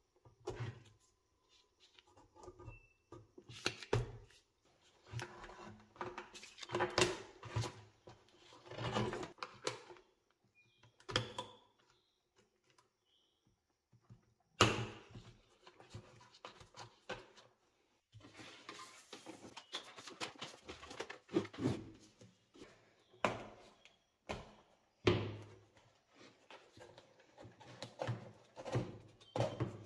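Hands working on an old wooden speaker cabinet: irregular rubbing and scraping of cords against the wood as they are untied and cut away, with a few sharp knocks of the box on the surface.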